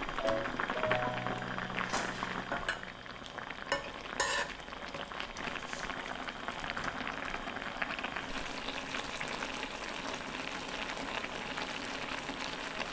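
Thick red chili sauce of Korean braised potatoes bubbling and sizzling in a pan as it reduces, a dense steady crackle of popping bubbles. A single sharp knock about four seconds in.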